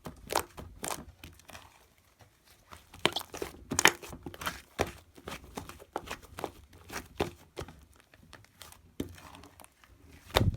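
Hands pressing and squishing a mound of shaving foam, making a series of short, sharp squelches and crackles. They come irregularly, about one or two a second, with a short lull about two seconds in.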